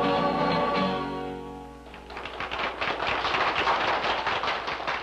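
A sung song with guitar ends on a held chord that fades out about two seconds in. A dense patter of applause follows.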